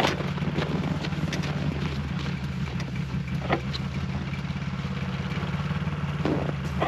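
Gasoline engine idling steadily and evenly, running smoothly on a freshly replaced carburetor.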